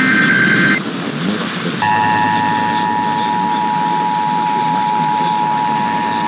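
Emergency Alert System tones: the last SAME header data burst, a short warbling digital chirp, ends just under a second in. About two seconds in, the EAS two-tone attention signal starts and holds steady, marking the start of an alert broadcast. A layer of hiss runs underneath.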